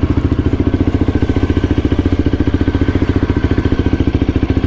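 125cc motorcycle engine idling steadily, with an even, rapid pulse and no revving.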